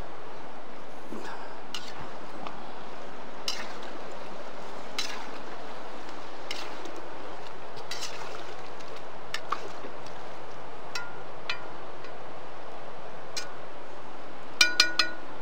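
Steady rushing of a river, with faint scattered clicks and a quick run of three sharp metallic clinks near the end.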